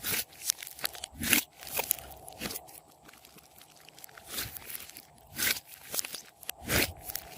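Hands kneading and squeezing clear slime, making irregular sticky crackles and pops, a few a second.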